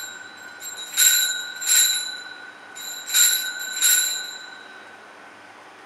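Altar bell rung at the elevation of the consecrated host: four strikes in two pairs, each ringing on and fading.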